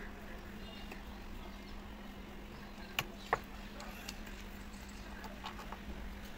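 A screwdriver prying the plastic terminal-box cover off an electric motor: two sharp clicks about a third of a second apart, about halfway through, as the cover pops free.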